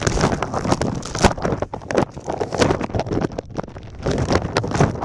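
Plastic zip bag crinkling and rubbing against a camera's microphone as the bagged camera is handled and carried: irregular crackling and rustling handling noise.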